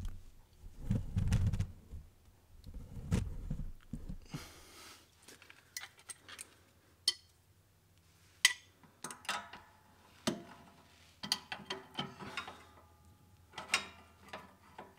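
Steel wrenches handled on a mower's belt-tensioner nut and bolt: a few dull knocks at first, then a string of sharp metallic clicks and clinks, some ringing briefly, as the nut is run onto the bolt.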